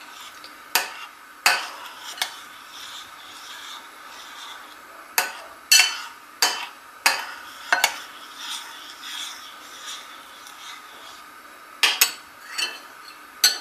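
Metal spoon stirring a thick custard of milk, egg yolk and sugar in a glass bowl: soft scraping with a dozen or so sharp clinks of the spoon against the glass, coming in clusters. The custard is being stirred as it cools so that no skin forms.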